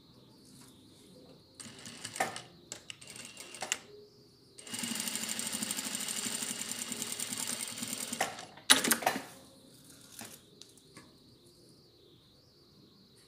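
Industrial single-needle sewing machine stitching the folded edge of a cloth face mask. It runs in a couple of short starts, then one steady burst of stitching lasting about three and a half seconds in the middle, followed by a few sharp clacks just after it stops.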